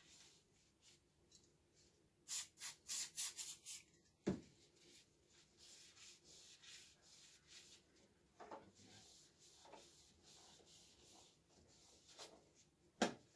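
Cloth wiping the oily metal door lip of a coffee roaster after a spray of cleaner. A quick run of rubbing strokes comes about two seconds in, then lighter wiping. There is a sharp knock about four seconds in and another near the end.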